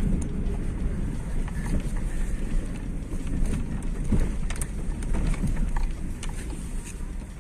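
Cabin road noise of a Volkswagen Polo driving over a rough street: a steady low rumble with a few light knocks and rattles, which the driver puts down to loose items in the boot and under the bonnet rather than a suspension fault.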